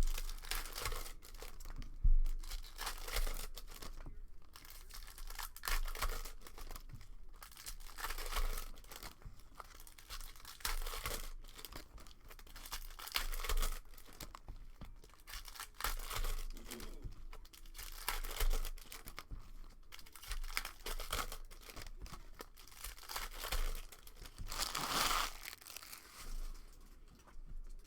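Plastic wrapping of a trading-card hobby box and its packs being torn open and crinkled by hand, in irregular bursts with a longer, louder tear near the end.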